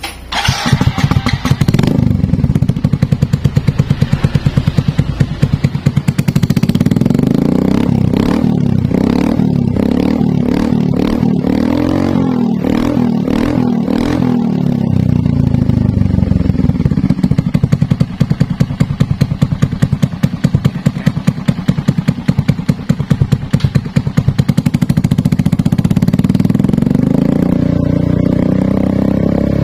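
Motorcycle engine running through an aftermarket racing exhaust fitted with a double-blade turbo fan tip, which spins in the exhaust flow. Revved up and down repeatedly around the middle, settling to a steady run between, and rising again near the end.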